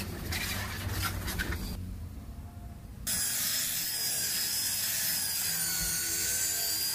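Electric rotary polisher with a foam pad running against a car's body panel; it sets in abruptly about three seconds in as a steady machine whine. Quieter rubbing comes before it.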